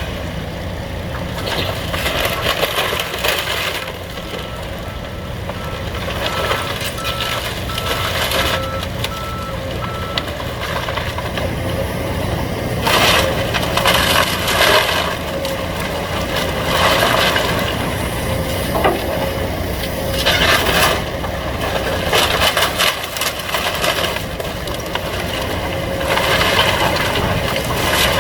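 Excavators running under load while demolishing a house, with a backup alarm beeping for about the first ten seconds. From about halfway in, repeated crunching and cracking crashes of the wooden structure being crushed and torn apart.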